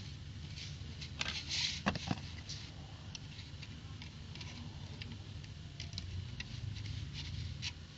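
Plastic toy building bricks being handled, giving scattered light clicks over a steady low hum, with a brief cluster of louder clicks and rattling about a second and a half in.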